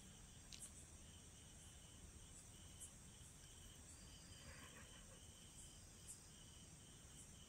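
Near silence: faint outdoor background with a steady, high-pitched, pulsing chirr of the kind crickets or other insects make.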